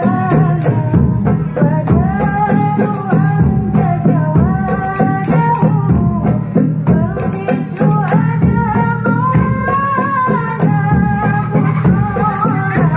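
Marawis ensemble performing: a girl sings a melody into a microphone over hand-beaten frame drums, a two-headed barrel drum and shaken tambourine jingles keeping a steady rhythm.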